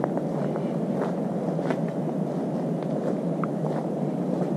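Footsteps crunching on a gravel path, a steady gritty noise with a few faint clicks of stones.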